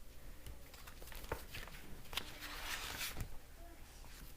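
A page of a picture book being turned: a soft paper rustle in the middle, with a few light knocks from handling.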